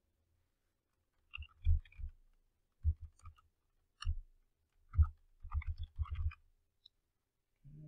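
Computer keyboard being typed on: irregular short runs of key clicks with dull thuds, bunched in several groups over a few seconds.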